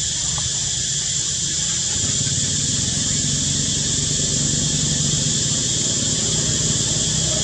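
Steady high-pitched insect drone, with the low hum of a motor vehicle's engine growing louder about two seconds in.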